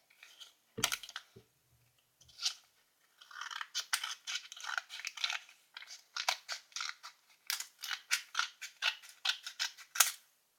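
Scissors cutting sheets of paper along the folds: a couple of single snips, then a quick run of short crisp snips from about three seconds in.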